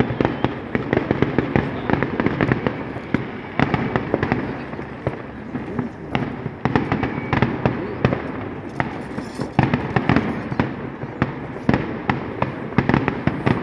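Fireworks going off in quick succession: a dense, unbroken run of bangs and crackles.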